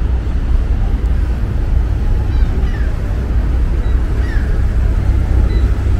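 Steady low rumble of outdoor riverside city ambience, with a few faint short high chirps.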